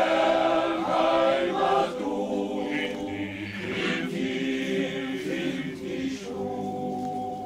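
Amateur choir singing a German song in several voice parts, with held, sustained chords.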